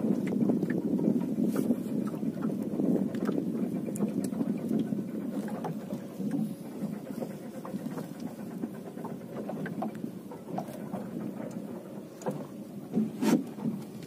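Wind buffeting the microphone and water moving around a small open boat, easing off gradually, with scattered light knocks and one louder knock near the end.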